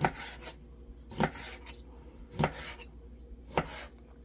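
A knife chopping a largemouth bass into pieces: four strokes about a second apart, each one a sharp knock of the blade followed by a short slicing hiss.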